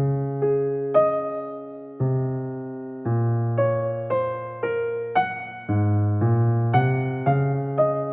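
Slow, gentle piano music: single notes struck about twice a second over low notes that change about once a second, each note fading away. No waterfall noise is heard under it.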